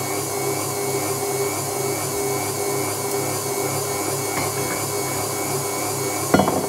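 Electric mixer running steadily, beating egg whites into stiff foam ('blancs en neige'), with a brief loud clatter near the end.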